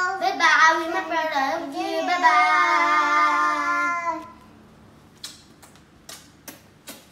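A child's voice singing in a sing-song way, ending in one long held note that stops about four seconds in. Then several short, sharp smacks.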